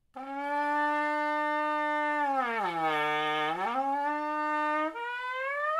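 Trumpet lead pipe and mouthpiece buzzed without the valves: a held note that slides down about an octave and back up in the middle, then a higher note that bends upward near the end. It is a lead-pipe pitch-bending exercise for getting lower and higher sounds.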